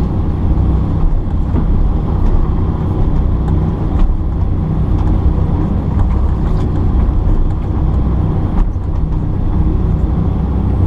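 Kobelco excavator's diesel engine running steadily while the machine works, with a few faint knocks.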